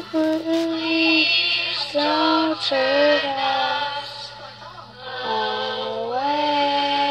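A young girl singing a few long held notes without clear words. The last note starts around five seconds in, rises slightly, and is held to the end.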